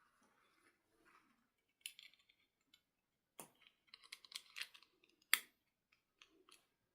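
Close handling of plastic toy parts or packaging: short crinkling rustles and small clicks, with two sharper clicks about three and a half and five and a half seconds in, the second the loudest.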